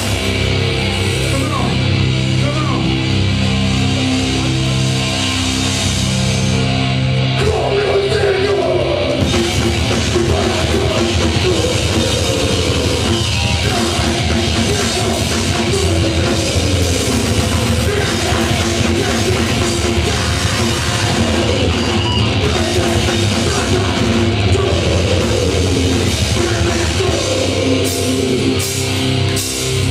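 Live hardcore band playing loud through a PA, with distorted electric guitars, bass, drums and vocals. The song kicks in at the start on long held chords, then moves into a faster, busier riff about eight seconds in.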